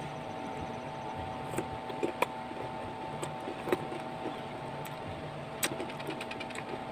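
Close-up chewing of a mango slice: a scatter of short, sharp crunches and mouth clicks, loudest about two seconds in, near the middle and again toward the end, over a steady low hum.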